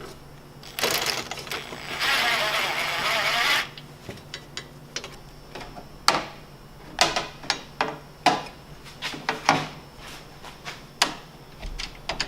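Bolts and metal bumper parts clicking and knocking as they are handled and fitted onto a snowmobile's tunnel, with a loud, steady rushing mechanical noise lasting about three seconds near the start.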